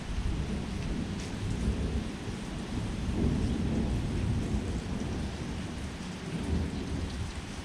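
Heavy rain falling during a thunderstorm, with continuous rolling thunder rumbling low underneath the rain's hiss.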